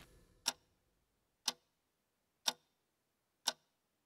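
Steady ticking: one short, sharp tick each second, four in all, over near-silence.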